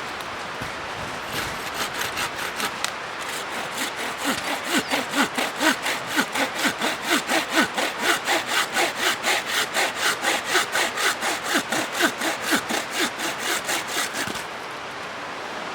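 Hand saw cutting through a dry tree branch, a long run of quick even back-and-forth strokes, about three to four a second, that stops shortly before the end. A river rushes steadily underneath.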